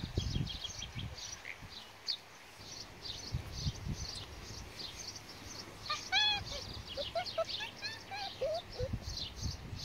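Small birds chirping steadily in the background, with a few short high yelps and squeaks from border collie puppies at play, the loudest about six seconds in.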